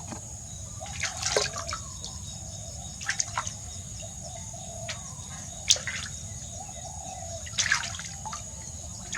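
Water splashing and dripping during a bath, in scattered short splashes a second or more apart, over a steady low hum.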